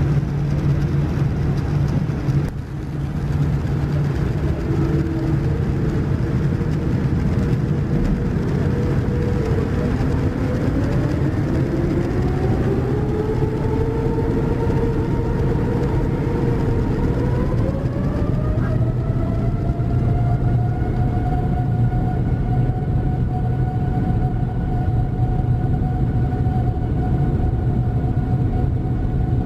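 Boeing 787-9's Rolls-Royce Trent 1000 turbofan engines heard from inside the cabin, spooling up to takeoff thrust. A steady low rumble is joined from about ten seconds in by a whine that rises in pitch, climbs again at around eighteen seconds, then settles into a steady high whine over the rumble.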